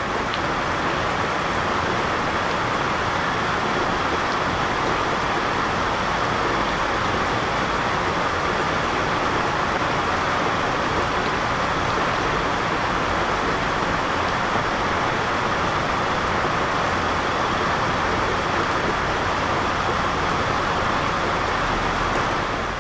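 Heavy rain pouring steadily: a dense, even hiss with no breaks.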